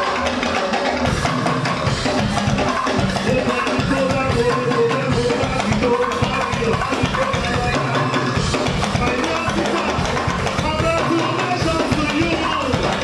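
Live church choir and lead singer singing with a drum kit and percussion backing.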